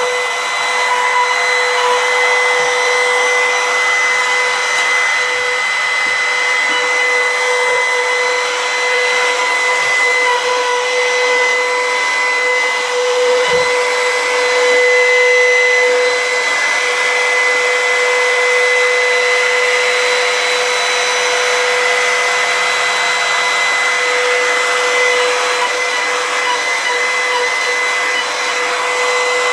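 Compact trim router running at high speed with a steady whine, its bit cutting across the face of a wooden slab as the router sled is passed over it to flatten it.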